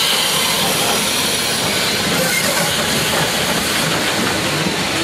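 Small saddle-tank steam locomotive passing close by with a steady hiss of steam, then its carriages rolling past on the rails.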